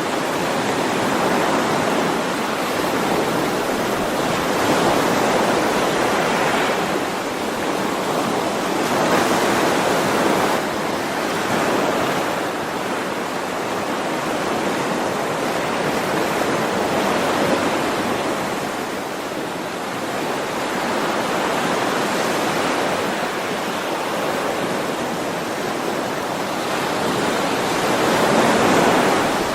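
Sea waves washing in: a continuous rush of surf that swells and eases every few seconds, with the biggest swell near the end.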